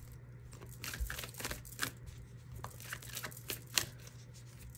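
Tarot deck being shuffled by hand: a run of soft, irregular card clicks and flicks, over a faint steady hum.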